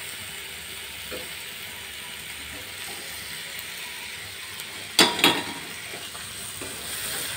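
Masala paste sizzling steadily in a kadai as fried paneer cubes are tipped in from a steel bowl. Two sharp metal clanks come about five seconds in.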